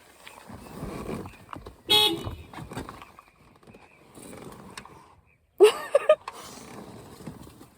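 A short vehicle horn toot about two seconds in. A louder brief pitched sound with a wavering pitch follows near six seconds.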